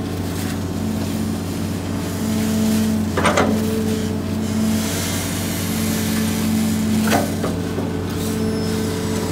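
Hitachi excavator's diesel engine running steadily, with an extra hum that comes and goes as the arm and bucket work. Two sharp knocks cut through, about three seconds in and again about seven seconds in.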